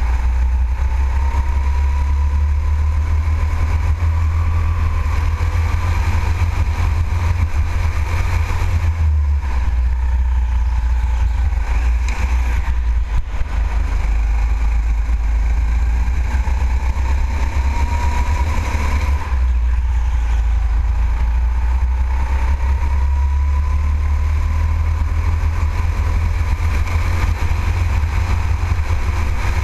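Go-kart heard from its own onboard camera while lapping at speed: a heavy, steady low rumble with a whine that climbs and falls with speed. The whine drops sharply about nineteen seconds in.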